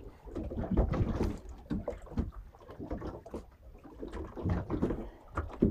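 Water slapping and splashing against the hull of a small boat on a choppy sea, in irregular low thumps, with some wind on the microphone.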